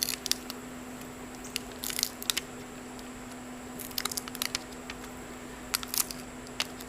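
Scattered crinkles and small clicks of plastic packaging being handled as sticky rubber tire-plug strips are taken out of their pack.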